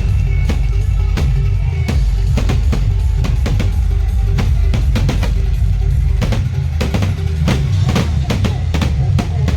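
Loud drum-heavy music with a heavy, constant bass, cut through by many sharp, irregular bangs and cracks.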